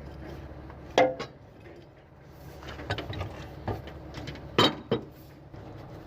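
Sharp metallic clinks and knocks, the loudest about a second in and two close together near the end, over a steady low hum.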